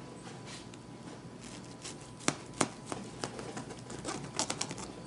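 Metal knife and fork cutting into a meatloaf in its metal pan, the utensils clicking and scraping against the pan several times, with the sharpest clicks a little past the middle and a quick cluster near the end.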